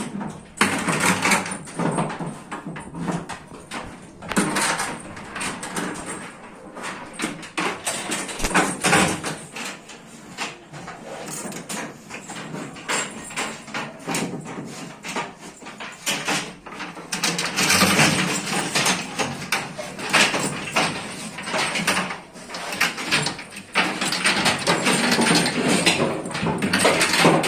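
Irregular knocking and clattering over a rough noise bed, louder in stretches around a few seconds in, near the middle and near the end.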